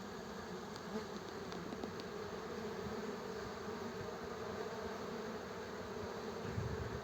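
Many honeybees buzzing in a steady, even hum as foragers fly out from the hive.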